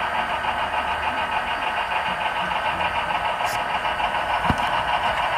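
Model trains running on a club layout: a steady mechanical whir with fast, even clicking of wheels over the track, and a single low knock about four and a half seconds in.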